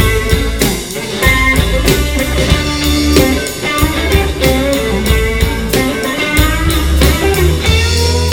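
Blues band playing: electric guitar lines with bent notes over bass guitar and a steady drum-kit beat.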